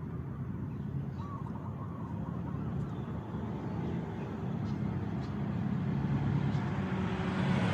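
Motorboat engine running steadily on the canal, growing louder as the boat approaches.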